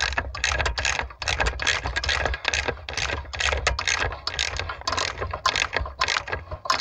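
Socket ratchet clicking rapidly, about six clicks a second, as it is swung back and forth to run down the master cylinder's mounting nuts.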